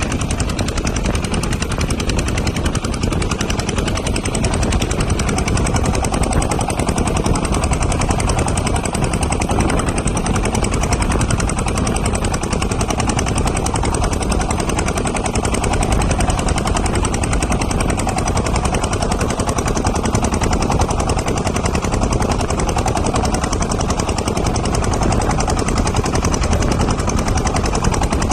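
Small boat's engine running steadily with a fast, even knocking beat.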